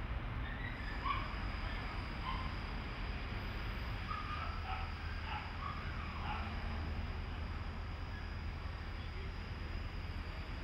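City street ambience: a steady low traffic rumble, with faint short scattered calls in the first seven seconds.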